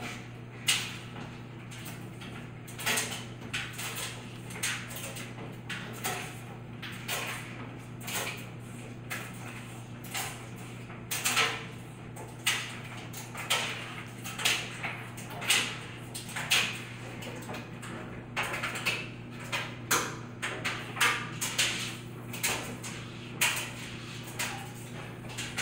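Aquarium air pump humming steadily while the sponge filter's airlift bubbles and splashes at the water surface in irregular bursts, about one or two a second.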